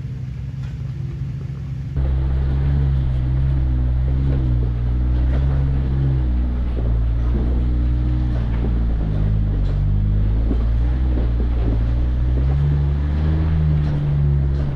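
Off-road vehicle engine working under load on a rocky trail climb, its pitch rising and falling as the throttle is worked. It gets louder about two seconds in.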